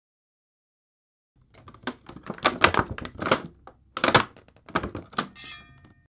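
Homemade foley for a kitchen knife slicing around a hand grenade: a run of knocks and scrapes starting about a second and a half in, ending with a short metallic ring.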